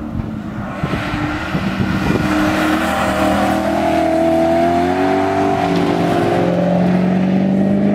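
BMW M3 GT's V8 with an Akrapovič exhaust, accelerating hard on track, its pitch climbing steadily as it pulls away. It gets louder about a second in and stays loud.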